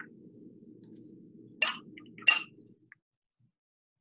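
Two sharp clinks of small cut-glass pieces being set down on a glass sheet, less than a second apart, over a faint low hum that cuts off soon after.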